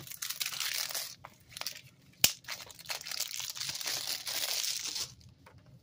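Plastic shrink wrap crinkling as it is torn and peeled off a Blu-ray case, in two long stretches, with a single sharp click a little over two seconds in.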